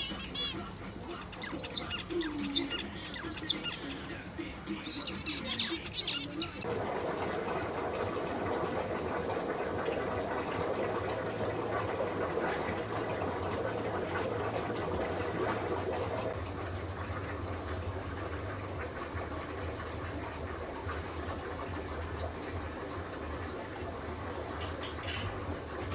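Small cage finches chirping for the first few seconds. About a third of the way in, the sound gives way to a steady low hum and hiss, with fast, high, insect-like chirping running through it.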